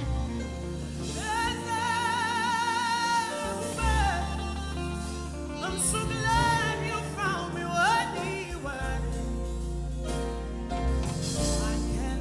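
Live gospel worship music: a solo voice sings wordless, vibrato-laden runs and slides over sustained keyboard and bass accompaniment.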